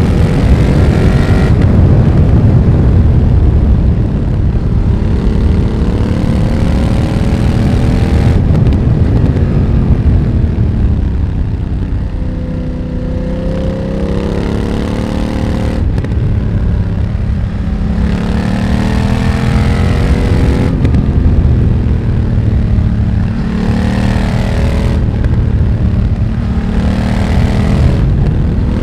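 BMW F900R's parallel-twin engine through a Mivv X1-M aftermarket exhaust, pulling and backing off on the road. The revs repeatedly rise and fall, with several quick gear changes where the note breaks and jumps in pitch.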